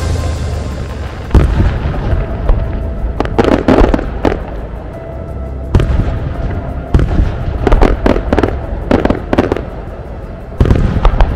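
Fireworks going off: a run of sudden bangs and crackling bursts every second or two, some coming in quick clusters.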